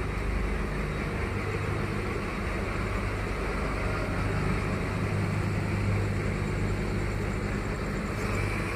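A large engine running steadily at idle, a constant low drone with no change in speed.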